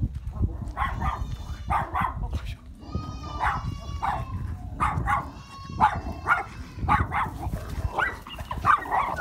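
A dog barking over and over, about two barks a second, over a low rumble.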